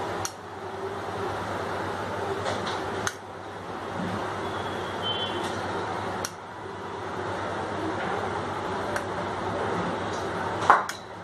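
Steady background noise, broken by a few faint clicks, then a sharp clink near the end as a steel spoon touches the serving plate.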